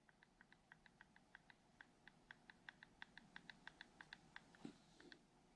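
Faint, quick ticking of the pinion and spur gear teeth as the RC car's motor and drivetrain are turned by hand to check the gear mesh, about five or six ticks a second, quickening briefly in the middle and stopping near the end.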